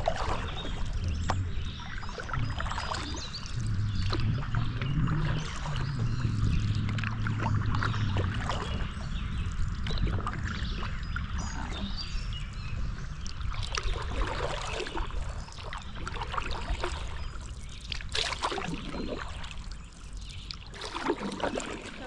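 Canoe paddles dipping and pulling through river water, with irregular splashes and drips off the blades, over a steady low rumble.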